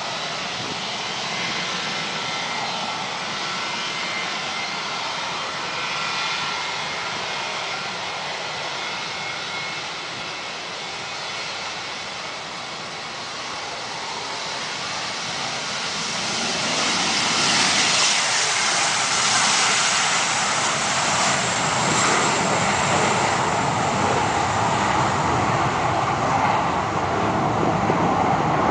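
Dassault Falcon 2000 business jet's twin turbofan engines running with a steady whine and a few high tones. About sixteen seconds in, the thrust comes up for the takeoff run and the sound grows much louder and fuller, staying loud to the end.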